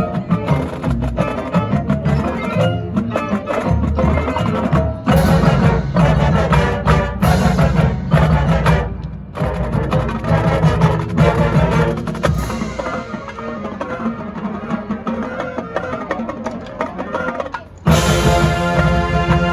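High school marching band playing its field show, a busy passage with prominent percussion. The full band comes in suddenly and loudly near the end.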